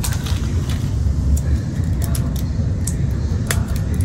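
Steady low rumble inside a moving Italo high-speed train carriage, with a few light clicks and rattles, the sharpest about three and a half seconds in.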